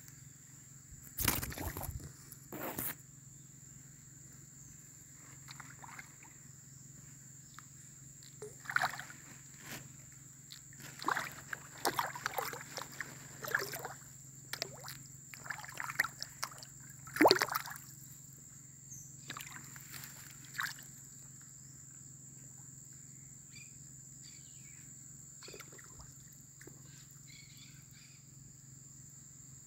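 Water splashing and sloshing in a string of short, irregular bursts, busiest through the middle stretch, with a steady high-pitched whine underneath.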